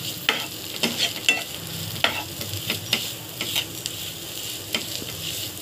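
Spiced potato filling frying in oil in a nonstick pan, with a steady sizzle, while a spatula stirs and mashes it, scraping and tapping against the pan at irregular moments.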